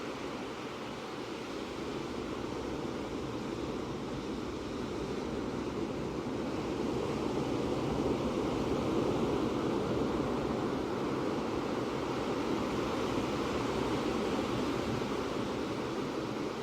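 Ocean waves: a continuous rush of surf that swells a little louder partway through and stays up.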